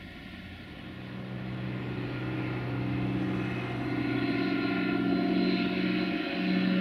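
Single-engine light high-wing propeller aircraft flying overhead, its piston engine drone growing louder as it approaches.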